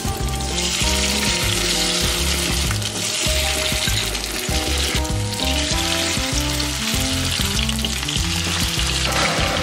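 Fish slices sizzling steadily in hot oil in a non-stick frying pan as they are added, over background music with a moving bass line.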